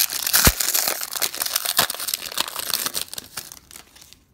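Plastic wrapper of a 2013 Prestige football card pack crinkling and tearing as it is opened, with a low thump about half a second in. The crackling dies away near the end.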